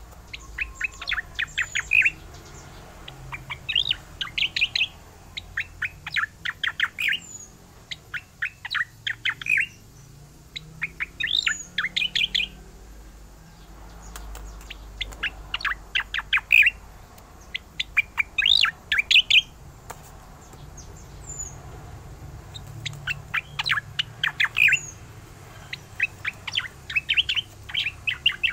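Caged striated grassbird (cica koreng) singing its rolling song: short, fast trilled phrases of about a second each, repeated every two seconds or so, with a couple of brief pauses.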